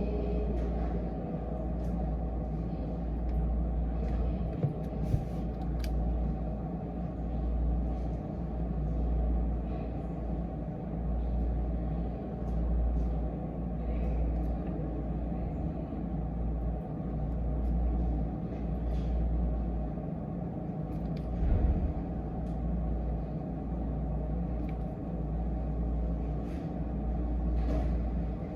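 Steady low background rumble, like distant traffic or a running appliance, with a few light sharp clicks or taps scattered through it, one louder about three quarters of the way in.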